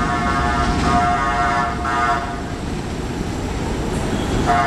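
R62A subway train running in on elevated tracks with a steady low rumble and a high-pitched ringing tone that swells twice, fades out about three seconds in, and comes back near the end.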